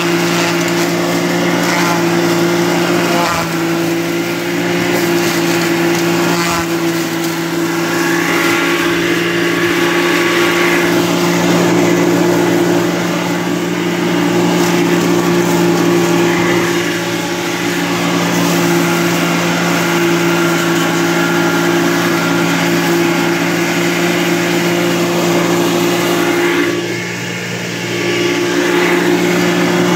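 Electric forage chopper (feed mill) running under load, driven by a 2.2 kW electric motor that is smaller than the usual 4 kW, chopping corn stalks and alfalfa hay. It gives a loud, steady hum with a constant chopping noise over it, and dips briefly in loudness near the end.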